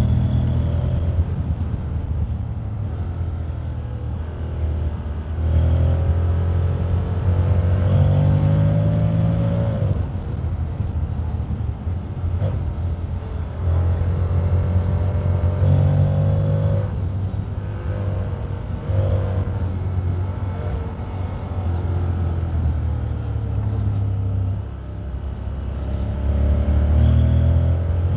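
Honda X-ADV 750's parallel-twin engine and exhaust under way, rising in pitch several times as the throttle opens and falling back in the lulls between.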